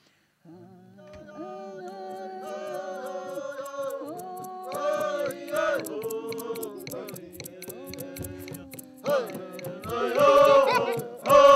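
A group singing a chant-style song with a hand drum. One voice holds long notes at first, then more voices join over a steady beat, growing louder about nine seconds in.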